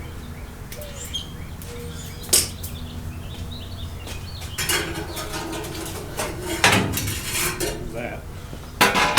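Metal clinking and rattling as a spool of wire is handled and wire is pulled off it: a sharp click a couple of seconds in, then several bursts of rattling.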